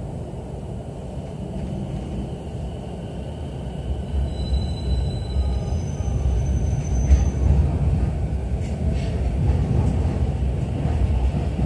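Interior running noise of a JR East E233-series electric commuter train pulling away from the platform and gathering speed. A low rumble grows steadily louder, with faint high tones near the middle.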